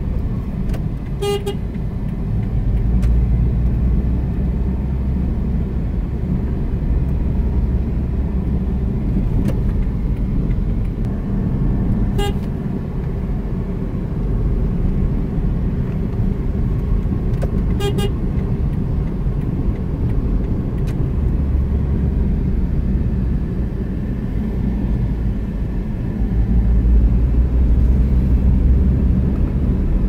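Car engine and road rumble heard from inside the cabin while driving, with three short horn toots: about a second in, around twelve seconds in, and around eighteen seconds in.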